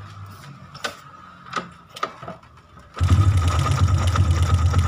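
A few sharp clicks, then about three seconds in a motorcycle engine fitted with an aftermarket carburettor starts. It at once runs loud and steady, with a fast, even beat.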